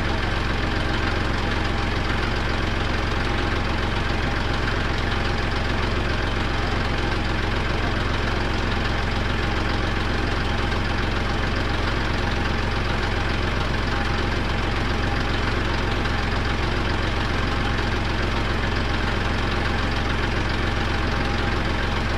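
Kubota tractor's diesel engine idling steadily, heard close up from the machine itself.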